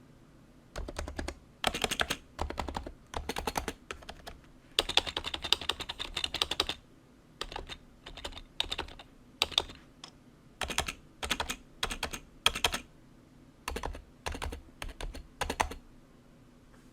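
Typing on a BTC 7150 keyboard with BTC dome-with-slider switches, rubber domes under sliders with double-shot ABS keycaps: quick key clacks in short bursts, with a longer rapid run in the middle and brief pauses between words.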